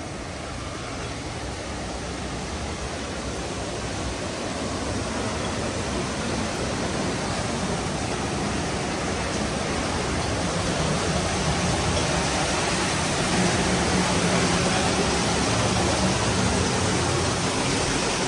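Steady rushing noise with no distinct events, growing gradually louder.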